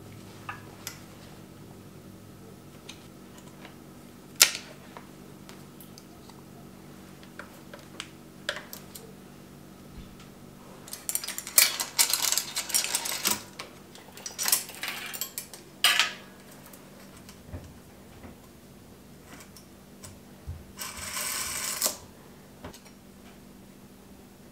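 Bicycle roller chain clinking and rattling as it is handled and fed onto the crankset's chainring, with scattered metal clicks. The rattling comes in dense bursts in the middle, and a second-long steady rattle of the chain running comes near the end.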